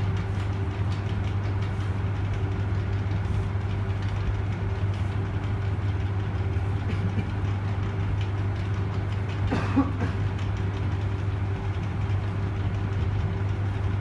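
Steady low machine hum, like a running motor, with one brief, short pitched sound about ten seconds in.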